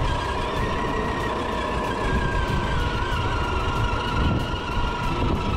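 Electric drive motor and gearbox of a Reely Freemen 1:10 RC crawler whining steadily under load as it crawls up a dirt slope, picked up close by the camera mounted on its roof, over a low rumble.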